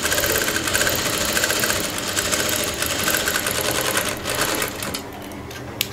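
Industrial lockstitch sewing machine running steadily, stitching a seam through two layers of fabric with a fast, even rhythm. It stops about five seconds in, and a single sharp click follows near the end.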